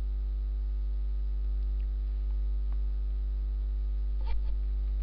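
Steady electrical mains hum with a ladder of buzzing overtones, unbroken throughout. Two short clicks come close together about four seconds in.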